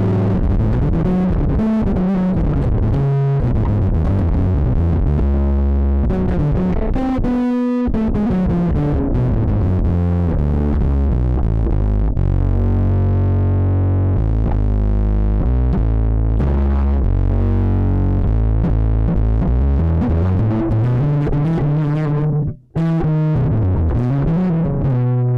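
Electric bass played through a "BlueB OD" overdrive effect with the gain set high: a continuous warm, gritty bass line with sliding notes. It breaks off briefly about three-quarters of the way through.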